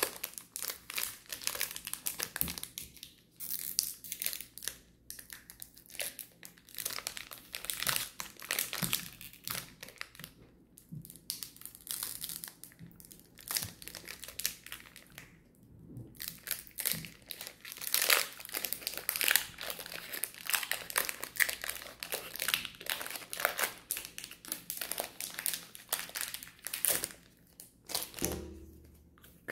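Foil booster pack wrapper crinkling and tearing as it is opened and handled, in irregular crackly bursts with a few short pauses.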